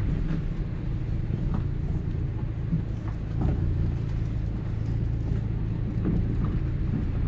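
Car engine running at low speed, heard from inside the cabin, as the tyres roll slowly over a rough, puddled gravel track, with scattered small clicks from stones under the wheels.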